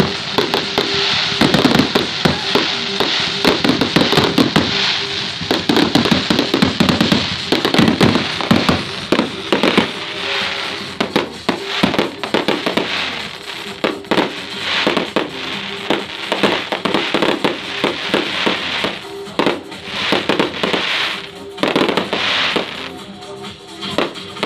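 Aerial fireworks bursting overhead in a dense barrage of bangs and crackling, thinning to more spaced bursts in the last few seconds, with music playing along.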